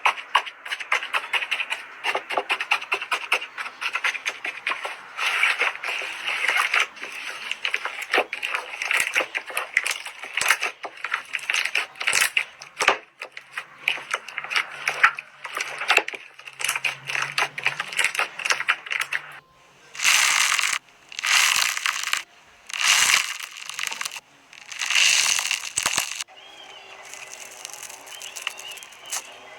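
Slime being squeezed and poked by hand, making a dense run of crackling clicks, then a handful of longer noisy squishes about two-thirds of the way through before it goes quieter.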